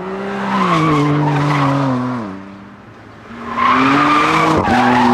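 BMW car being driven hard with its tyres squealing and skidding. The engine note holds, drops away about two seconds in, then swells again and climbs about a second later.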